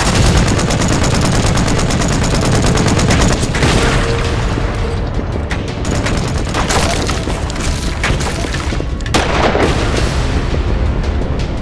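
Film battle soundtrack: rapid automatic gunfire and heavy booms of explosions over a continuous low rumble, with a musical score underneath. The rattle of shots is densest in the first few seconds, and several louder blasts come later.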